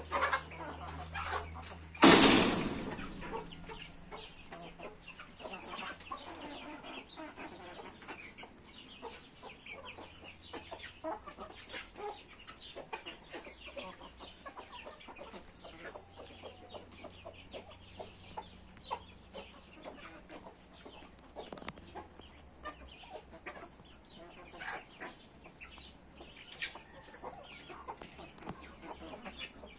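Backyard chickens clucking, with many small scattered clicks and short calls. A single loud, sudden sound about two seconds in dies away over about a second.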